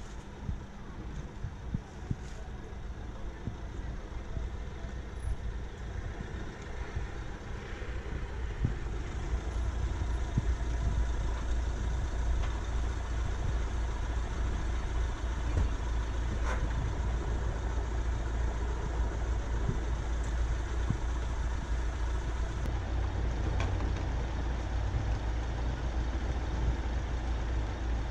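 Steady low rumble of a motor vehicle engine and street traffic, growing louder about a third of the way in.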